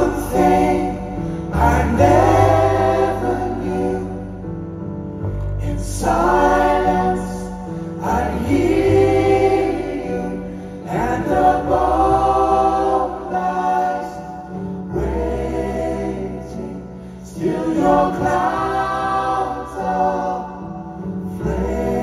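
Slow song performed live: several male and female voices singing together in harmony, in phrases of a few seconds, over held low keyboard and bass chords.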